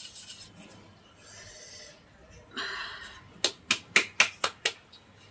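A bowl scrapes, then is knocked six times in quick succession, about four a second, against the rim of a steel mesh strainer to tap out naphthalene powder.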